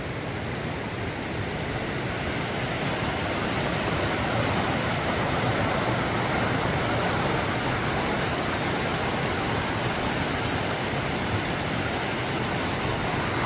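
Snyder Creek, a mountain creek running high with snowmelt, rushing steadily.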